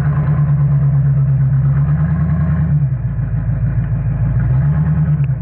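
Rock buggy engine held at high revs under load on a steep rock climb. It eases off about three seconds in and comes back on hard about a second and a half later.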